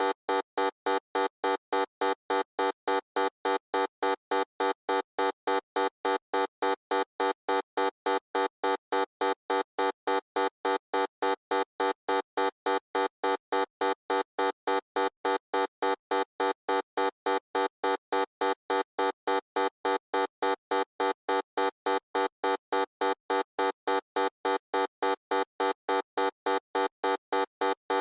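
Loud electronic buzzer beeping on and off in an even, rapid rhythm, about three beeps a second, a harsh tone with many overtones.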